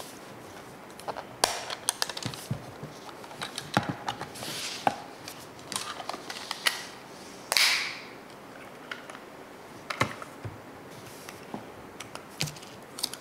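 Hands working plastic parts: scattered sharp clicks and snaps with handling rustle as the camera is unclipped from its clear hard case and a 35mm film canister is opened. A longer scraping rub comes about halfway through.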